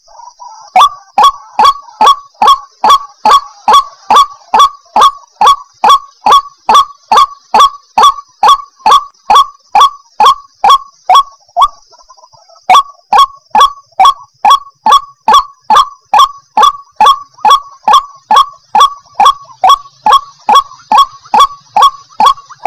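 White-breasted waterhen (ruak-ruak) calling: a sharp note repeated rapidly and evenly, about three times a second, breaking off for about a second near the middle before resuming. It is a recorded call played as a lure for trapping wild waterhens.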